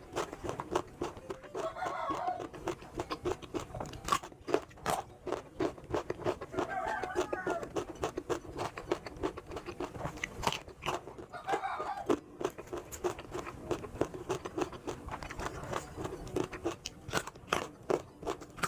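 Papaya being bitten and chewed close to the microphone: a dense run of wet crunching clicks. A chicken calls three times in the background, about two, seven and eleven seconds in.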